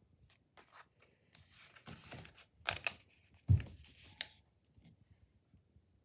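A sheet of paper being handled and folded, with short rustles and crisp crackles and a knock about three and a half seconds in.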